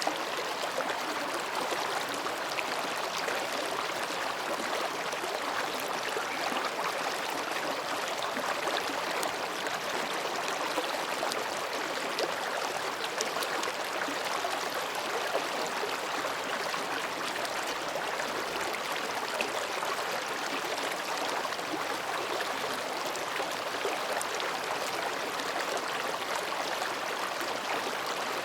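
Mountain stream babbling steadily as it flows between rocks.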